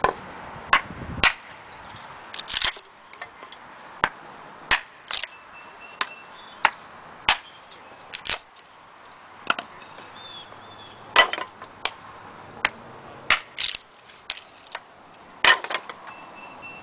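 Collins camp hatchet chopping and splitting thin, dry pallet boards into kindling on a wooden chopping block: about twenty sharp chops and wood cracks, irregularly spaced, some coming in quick pairs.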